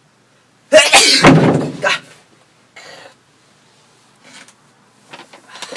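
A person sneezing once, loudly, about a second in, the sneeze lasting a little over a second, followed by a few much fainter short sounds.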